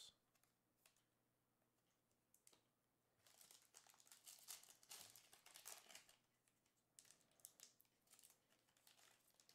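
Faint crinkling and tearing of a trading-card pack's foil wrapper as it is torn open by hand, starting about three seconds in and going on in irregular rustles.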